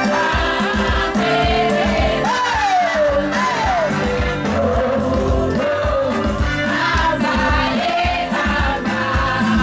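Upbeat worship music with singing over a steady drum beat, with a few high sliding vocal cries.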